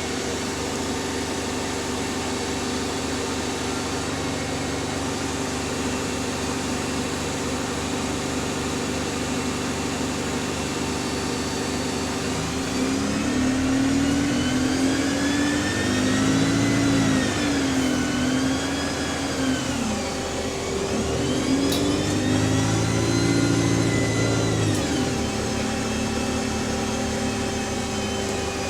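Double-decker bus engine and Voith automatic gearbox under the floor, first running steadily, then from about halfway pulling away with a whine that rises in pitch, dips, rises again and falls away as the bus accelerates and changes gear, before settling back to a steady hum.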